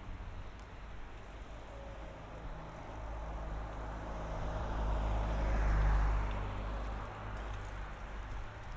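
A motor vehicle passing by, growing louder to its loudest about six seconds in, then fading.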